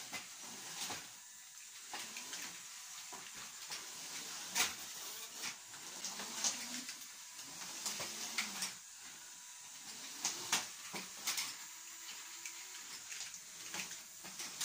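Lego robots' small electric motors and gears whirring as they drive and push against each other, with scattered sharp clicks and knocks of plastic parts, the loudest about four and a half seconds in and again around ten to eleven seconds.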